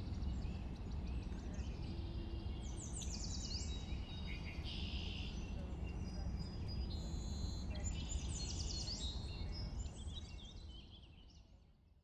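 Birds chirping and singing in short, high, quickly falling phrases over a steady low background rumble; the sound fades out near the end.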